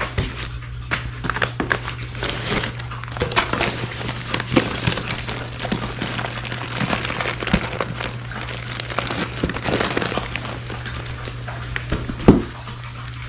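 Crumpled newspaper packing rustling and crinkling as it is pulled out of a styrofoam shipping box, with plastic bag crinkling, in irregular handfuls throughout. A single sharp knock comes near the end.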